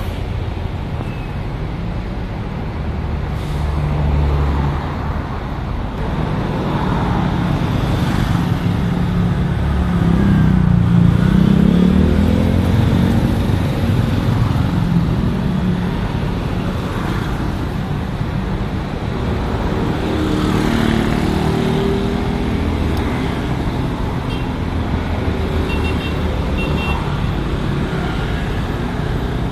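Large bus diesel engines running amid road traffic, with an engine note that rises and falls around ten to thirteen seconds in.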